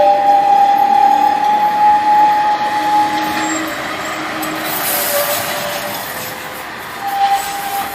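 Narrow-gauge train running past with a steady two-note tone that stops about halfway through and comes back near the end, over the noise of the running train.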